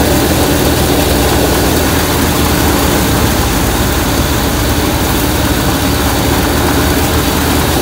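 Tractor-driven grain thresher running steadily under load as bundles of cut crop are fed into it, a loud continuous mechanical din with the tractor engine's low hum beneath.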